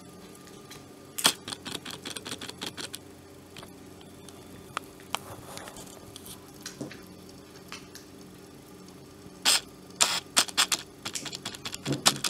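Rapid clusters of small plastic clicks and rattles as a hand blender's switch and its wires are worked loose and pulled out of the opened plastic housing. One burst comes about a second in and a denser one from about nine and a half seconds on, with a few single ticks between.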